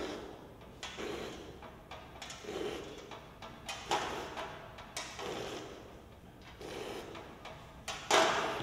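A metal tray being scraped and rubbed on a stone floor as a head pushes over it and the debris on it, in a series of short scrapes about once a second. The loudest scrape comes near the end.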